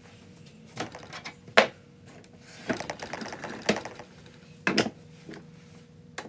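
Metal tools being handled at a lathe: a series of irregular clicks and knocks, roughly one a second, over a faint steady hum.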